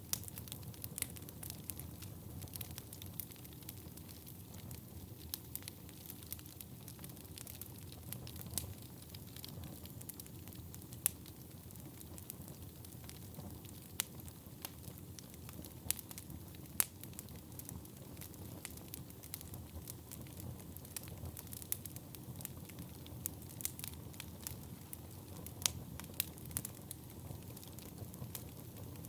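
Wood fire burning in a fireplace, crackling with frequent sharp pops over a low steady rumble, a few pops louder than the rest.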